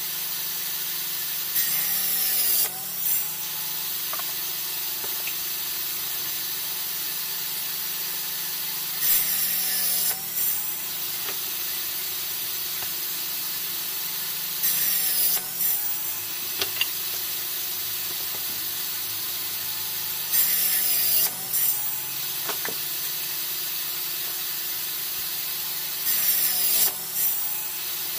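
Homemade table saw's circular blade running steadily and cross-cutting wooden boards five times, about every five to six seconds. Each cut is a loud rasp lasting about a second, and the motor's pitch sags under the load and then recovers.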